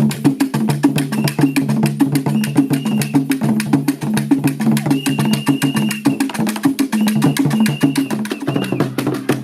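Percussion-driven music: a rapid, even run of sharp strikes over steady low tones, with short high held notes coming in now and then.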